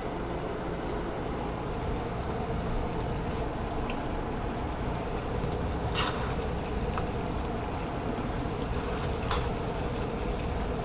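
A pot of stew simmering on the stove: a steady low rumble and hiss, with a few light clicks.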